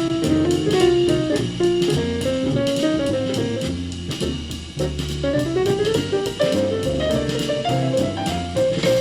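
A jazz band recording playing loud through an Oittm stereo Bluetooth speaker: a moving melody over a steady bass line and drums.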